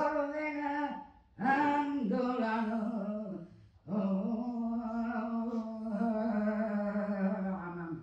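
A single voice singing long, held notes without words, in three phrases with short pauses between them. The second phrase steps down in pitch partway through.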